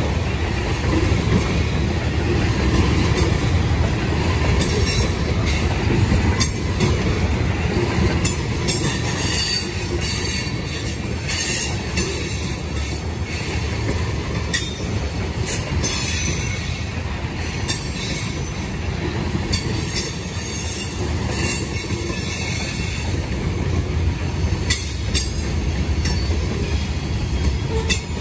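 Freight train of covered hopper cars rolling past at close range: a steady rumble of steel wheels on rail, with scattered sharp clicks and clacks from the wheels and car couplings.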